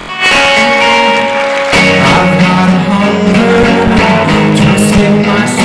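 A rock band playing live: a guitar chord rings on its own, then drums and bass come in about two seconds in and the full band plays on.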